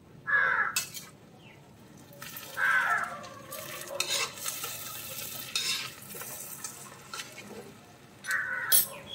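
Metal spatula scraping and stirring a thick chicken stir-fry in a heavy iron kadai, in several separate strokes, over a low sizzle from the hot pan.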